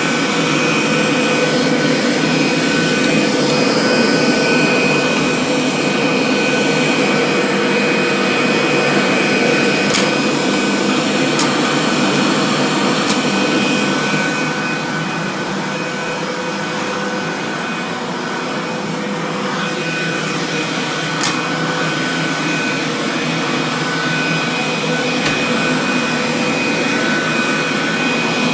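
Kirby Classic III upright vacuum cleaner running steadily while vacuuming a floor, a continuous motor-and-airflow noise with a steady whine over it. It drops slightly in loudness about halfway through, then picks up again near the end.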